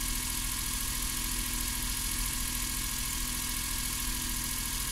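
Suzuki Every DA62V van's three-cylinder kei engine idling steadily, heard from inside the cabin. It was just started on a battery left unused for four months, without the jump starter.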